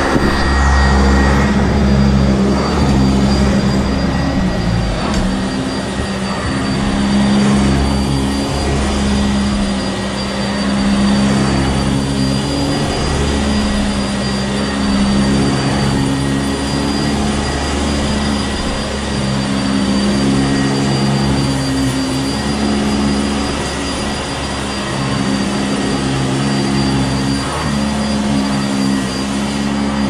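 Sanitaire SC679J commercial upright vacuum cleaner running on carpet, a steady motor whine with a low hum that swells and fades every few seconds as it is pushed back and forth.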